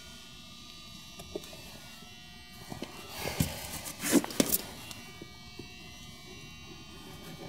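A steady low hum in the background, with a few short rustling scrapes a little past halfway as a caulk-covered finger is wiped on plastic house wrap.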